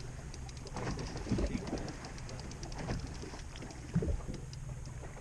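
Boat motor idling with a steady low hum, with a few light knocks and a sharper one about four seconds in.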